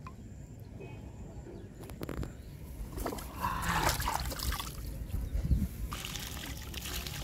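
Water splashing and sloshing in a plastic tub as hands handle the fish in it, with a few louder splashes. Near the end it becomes water pouring out of the tipped tub onto the grass.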